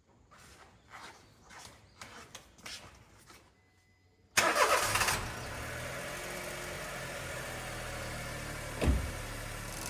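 A Honda Life JC1's 660 cc three-cylinder engine starting about four seconds in, running up briefly and then settling to a steady idle. A few faint knocks come before it, and there is a short low thump near the end.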